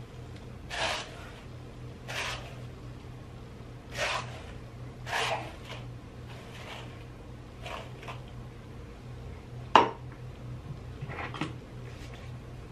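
Paddle hairbrush being pulled through long hair, a short swish every second or two, with one sharp click late on, the loudest sound. A steady low hum runs underneath.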